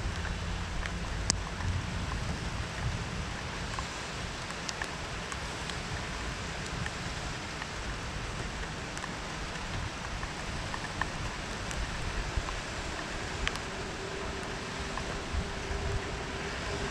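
Steady rain falling, with scattered sharp ticks of drops landing close by. A faint steady hum joins in for the last few seconds.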